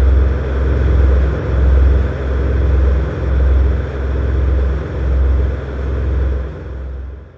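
Horror sound effect: a deep, loud rumbling drone with a hiss of noise over it, swelling and fading in slow pulses about every second and a half, then cutting off at the end.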